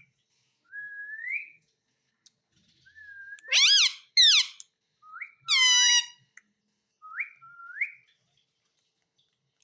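Indian ringneck parrot whistling and calling: several short rising whistles, with three louder, harsher calls in the middle that have the same shape as its 'mummy' imitations.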